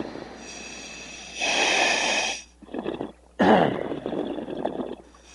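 Commercial diver breathing through the demand regulator of his diving gear: two loud breaths of rushing air, about a second and a half in and again about three and a half seconds in, over a steady low hiss.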